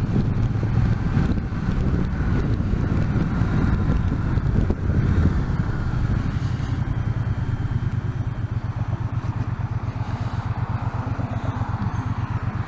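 Triumph T120 parallel-twin engine running under way, mixed with wind rush on the microphone. About halfway through, the engine note settles into a slower, even beat of firing pulses.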